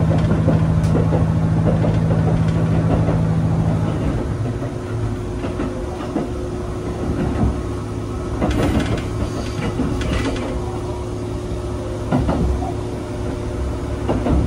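KiHa 75 diesel railcar running, a steady low engine hum with scattered clicks and knocks; the engine note drops and quietens about four seconds in.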